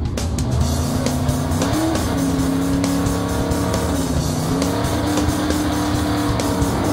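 Revving engine sound effect for a cartoon monster truck: a steady drone that rises in pitch about two seconds in and again around four and a half seconds in, over background music.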